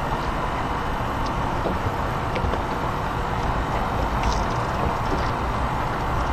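Steady rumbling wind noise on the microphone, with a few faint ticks.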